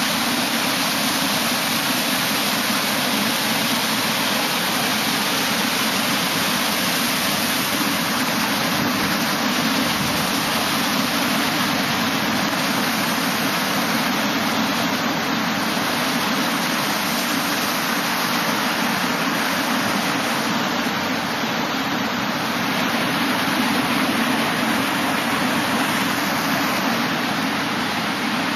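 Ocean surf breaking and washing up on the beach, heard as a steady rushing hiss.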